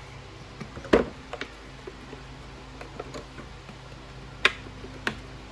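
Plastic socket-set case being shut and latched: a sharp click about a second in, a few lighter ticks, then two more sharp clicks near the end, over the steady hum of a fan.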